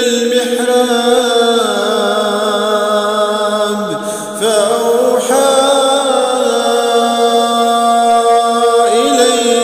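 A male voice reciting the Quran as melodic chant (tajweed, Warsh reading), drawing out long held notes with slow ornamented turns of pitch. There is a brief dip and a glide to a new note about four seconds in.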